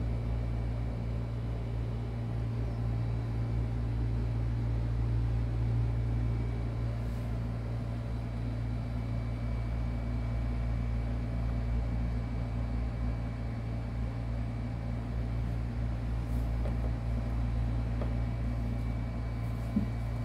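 A steady low mechanical hum with a faint high whine over it, unchanging throughout, and one short knock near the end.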